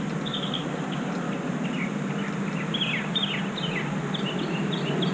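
Small birds chirping: quick runs of short, falling chirps, over a steady low hum that grows slightly louder near the end.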